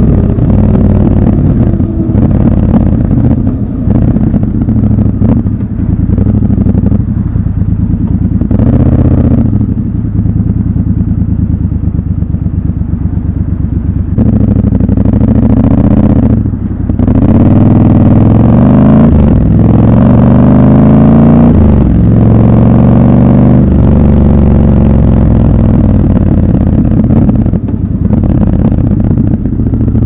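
Triumph Scrambler 1200 XC's 1200 cc parallel-twin engine running under way, easing off early on. In the middle it accelerates through several gears, its pitch rising and breaking briefly at each shift, then it eases off again.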